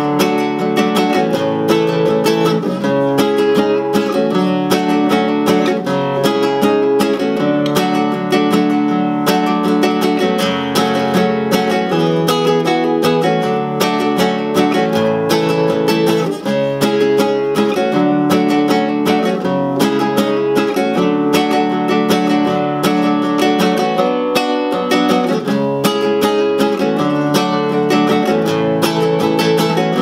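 Nylon-string classical guitar, capoed at the second fret, strummed steadily through a verse progression of E minor, D, C, G and B minor chords, moving into the chorus near the end.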